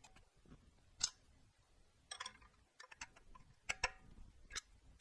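Metal grinder parts being handled and fitted by hand: a few separate sharp clicks and clinks, some with a brief metallic ring.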